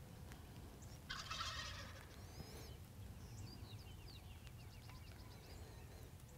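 Rio Grande wild turkey gobbler gobbling once, about a second in, at a distance. Faint high chirps and a quick trill follow it.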